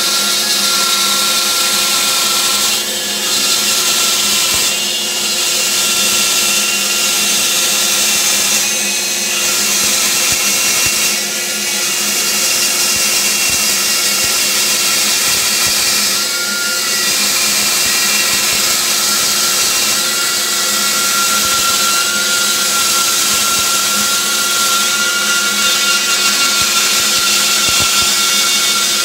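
Band saw running and cutting through a thick wooden block: a steady, loud whir with a high whine, dipping briefly a few times as the block is fed along the curve.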